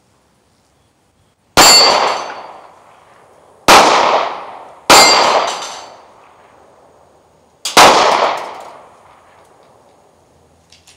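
Four pistol shots from a Glock 43 9mm subcompact, fired at uneven intervals with the second and third close together, each ringing off with a short echo.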